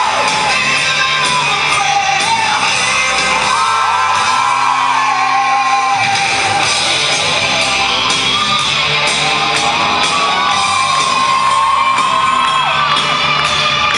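Loud rock music with electric guitar, a lead line gliding between held notes; the bass drops out for a couple of seconds near the middle.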